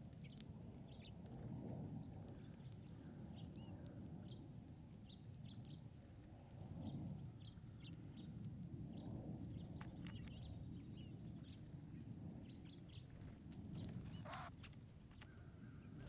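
Small songbirds giving short, scattered chips and tweets over a low steady rumble, with one louder call near the end. Two sharp clicks stand out in the first few seconds.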